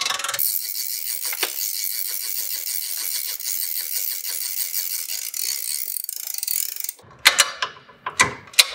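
Hand-cranked gear winch on a pop-up tent camper's tongue clicking steadily through its ratchet as it raises the camper roof. The clicking stops about seven seconds in, and a few sharp knocks follow.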